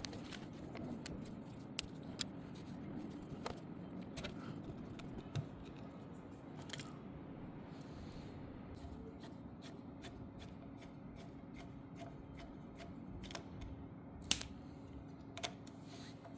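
Scattered light clicks and taps of small parts being handled at a workbench, over a faint steady hum.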